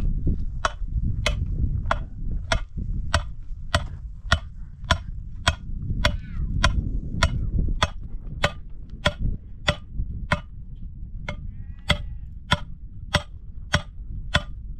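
Hammer blows at a steady pace, about one every 0.6 seconds, driving a thin metal stake into stony ground, over a low steady rumble.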